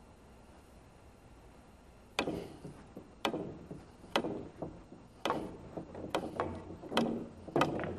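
Pool balls being shot in quick succession, starting about two seconds in: sharp clacks of cue and ball strikes and balls dropping into the pockets, roughly one a second. The clacks come closer together near the end.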